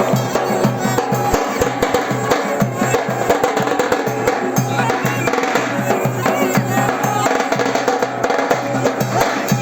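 Music with drums and percussion beating a fast, dense rhythm under a held melody.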